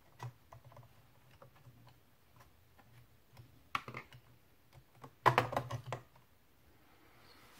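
Toshiba 2.5-inch laptop hard disk in its metal caddy clicking and rattling against the notebook chassis as it is slid out of its bay and lifted free. Scattered light clicks build to a quick clatter of taps about five seconds in.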